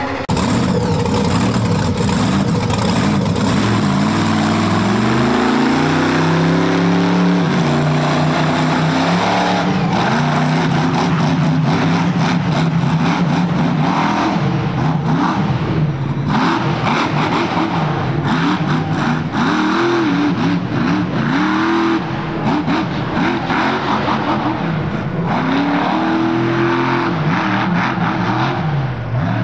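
Monster truck engine run hard under throttle, loud, its pitch climbing steeply in the first several seconds, then surging up and dropping back again and again.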